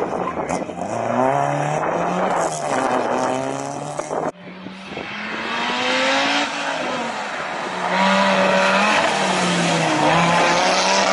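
Historic rally car engines revving hard on a tarmac stage. The engine note climbs and drops back with each gear change. There is an abrupt cut about four seconds in, and after it another car is heard accelerating up through the revs.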